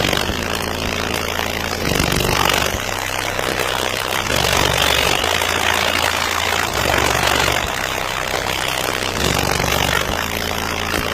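Very loud car-audio bass from four Sundown Zv.5 15-inch subwoofers in a sixth-order bandpass enclosure, playing deep sustained notes that step to a new pitch every second or two. A harsh noisy layer sits over the bass, heaviest through the middle.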